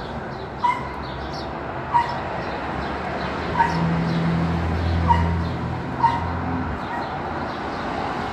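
Dove squabs squeaking while a parent feeds them in the nest: five short, high squeaks spread over the seconds, with a low rumble underneath for a few seconds in the middle.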